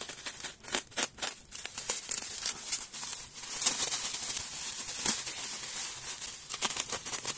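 Bubble wrap being slit with a box cutter and pulled open by gloved hands, crinkling and crackling irregularly throughout.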